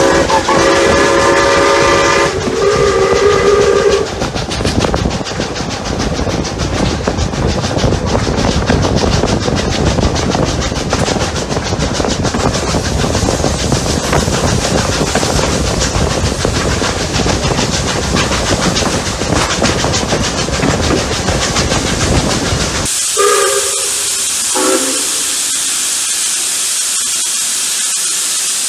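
Steam locomotive whistle blowing two blasts, then the locomotives working hard with fast, dense exhaust beats and rail noise. About 23 seconds in, the beats stop abruptly, leaving a steady hiss of steam broken by two short whistle toots.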